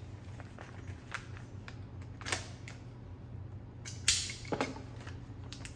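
Scattered clicks and knocks from items and packaging being handled, the sharpest about four seconds in, over a low steady hum.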